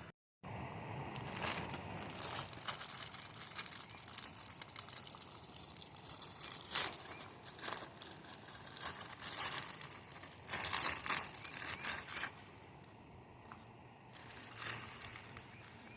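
Irregular crinkling and rustling in uneven bursts, something being handled and crumpled; it eases off a few seconds before the end, with one short flurry near the end.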